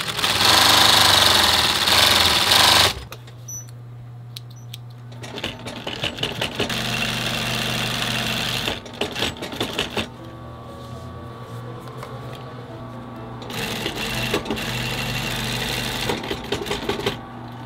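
Industrial sewing machine sewing a zigzag seam through a leather boot upper, running in three bursts of a few seconds each with short pauses between, over a steady motor hum.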